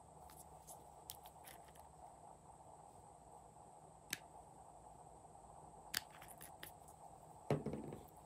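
Small plastic clicks and taps from hands handling lip-tint containers and their caps: a few sharp clicks, the clearest about four and six seconds in, and a duller thud near the end, over a faint steady hum.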